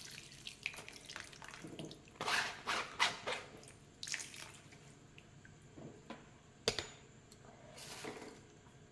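Coconut milk wrung by hand from grated coconut through a plastic strainer, splashing and dripping into a wok in irregular wet squelches. There is one sharp knock about two-thirds of the way in.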